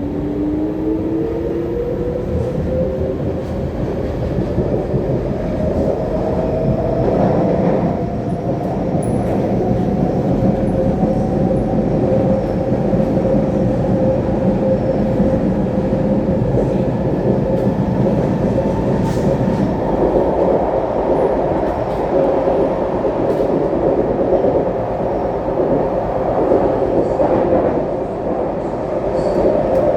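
SMRT C151B metro train running, heard from on board: the traction motors whine, rising in pitch over the first few seconds as the train gets up to speed and then holding steady. Under the whine is a loud rumble from the bogies on the track.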